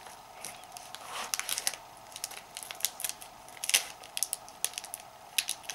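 Small scissors cutting the plastic film wrapper of a stick of modelling clay: a scattered series of short, sharp snips.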